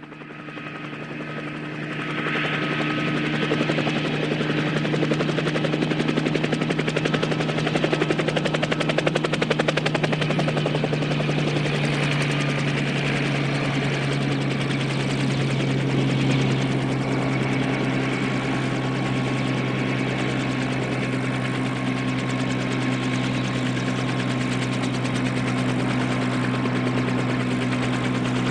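Bell 206 JetRanger helicopter running close by: a steady, rapid rotor beat over a constant turbine whine. It fades in over the first couple of seconds, then holds steady.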